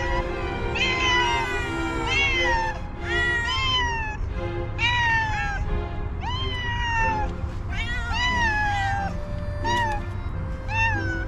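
Hungry stray tabby cats meowing loudly and repeatedly for food, about one meow a second, each call rising then falling in pitch.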